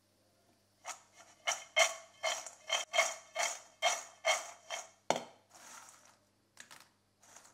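Crisp deep-fried penne rattling against a stainless steel bowl as the bowl is shaken, about ten quick rattles at a steady pace. After that, fainter rustling and a few small clicks as a hand stirs through the dry pieces.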